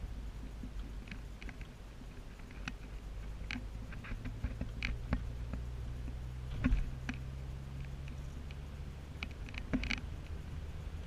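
Car driving, heard from inside the cabin: a steady low hum of engine and road, with scattered light ticks and taps and a couple of slightly louder knocks.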